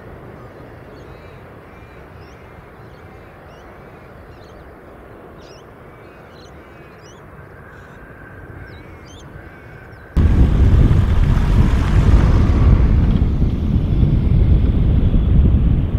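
Faint distant jet rumble with small birds chirping over it, then about ten seconds in a sudden switch to the loud, deep rumble of an Airbus A380's four jet engines on final approach.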